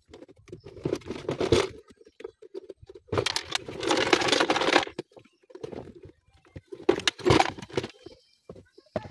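Irregular rustling and scraping with sharp clicks, the sound of hands handling wiring and small parts. The rustling comes in three stretches, the longest lasting almost two seconds.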